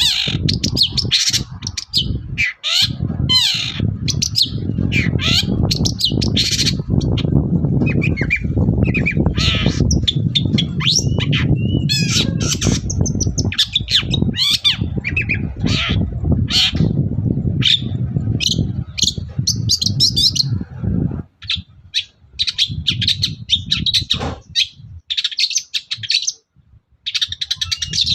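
Long-tailed shrike (cendet) singing continuously, a rapid string of harsh squawks and chirps mixed with mimicked calls of other birds. Under it runs a low steady noise that stops about two-thirds of the way through.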